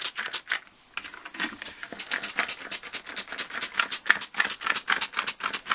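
Hand trigger spray bottle misting plain water in quick repeated squirts, about five a second, with a short break about a second in, wetting model railway ballast so the glue will soak in and set.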